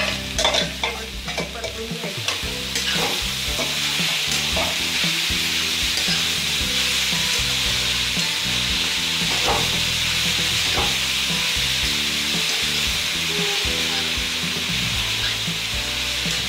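Grated carrots sizzling in hot ghee in a kadhai while a spatula stirs and scrapes them around the pan, with a few sharp clicks in the first few seconds. This is the carrots being sautéed in ghee, the first cooking stage of gajar halwa.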